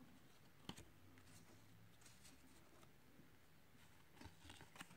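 Near silence with faint handling of baseball cards, slid one past another in the hands: a light click a little under a second in and a few soft clicks and rustles near the end.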